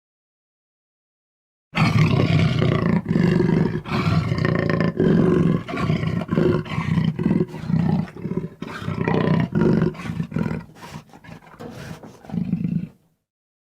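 Mountain lion vocalising: a long run of loud, rough calls broken into short pulses every half second or so, starting about two seconds in and stopping shortly before the end.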